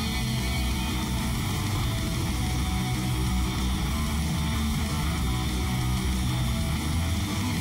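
Knifemaking belt grinder running steadily, the motor hum and belt noise of a 320-grit belt used to smooth a wooden knife handle, with guitar music in the background.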